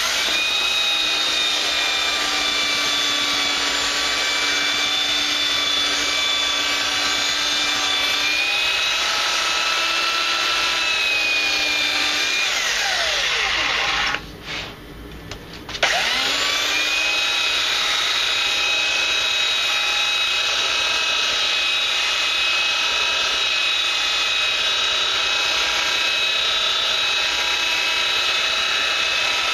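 Electric power sander sanding a wooden cutting board, its motor running with a steady whine. About halfway through it winds down with a falling pitch and stops. A second and a half later it starts again, rises back to speed and keeps sanding.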